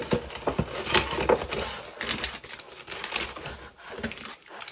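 Clear plastic packaging crinkling and rustling in irregular crackles as cellophane-wrapped scrapbook supplies are picked up and moved about.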